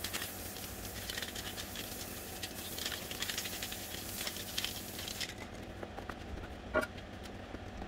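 Sandpaper rubbed by hand along the lip of an alloy wheel rim: quick, scratchy strokes that stop about five seconds in, followed by a few soft knocks and a brief louder one near the end.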